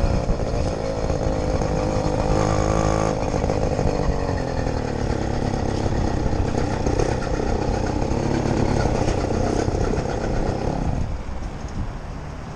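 80cc two-stroke motorized bicycle engine running as the bike rolls slowly at low speed, its note shifting up and down. About eleven seconds in it drops to a quieter, lower note as the bike reaches the pump.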